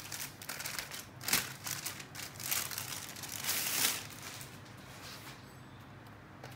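Plastic packaging crinkling and rustling in several bursts as a laptop is pulled out of its cardboard box, dying down after about four seconds.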